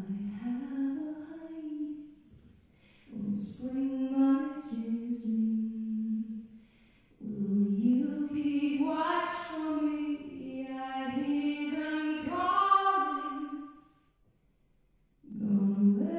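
A woman singing a slow song live into a microphone: a short phrase, a second phrase, then a long held phrase, each followed by a brief pause, with the next phrase starting near the end.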